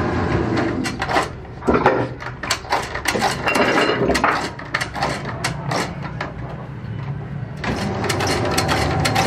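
Hand-lever shear cutting rubber strips: irregular sharp clacks and knocks as the blade comes down and the pieces are handled. Near the end a steady machine drone comes in.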